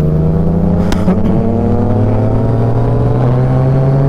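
Yamaha Tracer 900 GT's three-cylinder engine pulling steadily while under way, its pitch rising slowly as the bike gathers speed, with wind and road noise beneath it.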